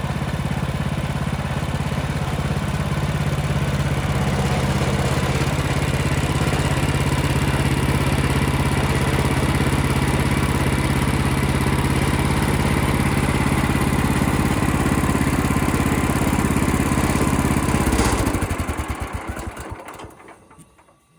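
Engine of a portable bandsaw sawmill running steadily, then switched off near the end and winding down to a stop.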